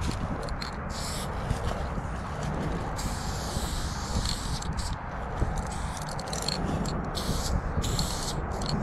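Aerosol spray-paint can hissing in several short bursts as paint is sprayed onto a metal pipe, with one longer spray about three seconds in. A steady low rumble runs underneath.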